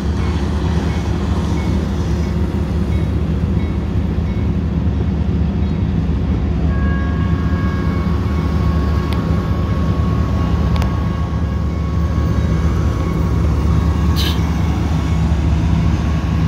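Steady low diesel rumble of heavy traffic and an approaching freight train at a railroad grade crossing. From about seven seconds in, a steady ringing tone joins it as the crossing signal's bell starts up and the gates begin to lower.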